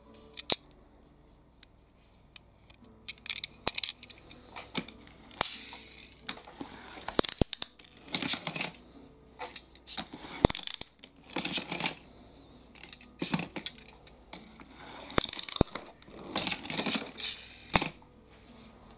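Die-cast pullback toy car handled and rolled on a play mat: a series of short rasping whirrs from its wheels and pullback motor, mixed with sharp clicks as the metal car is set down among others.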